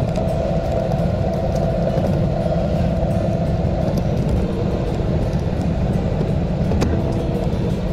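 Wind rumbling steadily on the microphone of a moving camera, with a faint steady hum above it.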